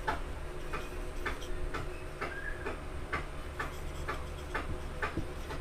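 Marker pen writing on a whiteboard: a string of light, unevenly spaced taps and strokes, about two or three a second, with a short squeak about halfway through.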